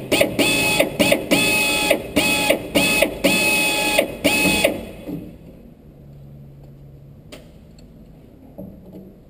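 Power drill boring out the heads of small rusted-in screws, its motor whining in a string of short bursts for about five seconds before it stops.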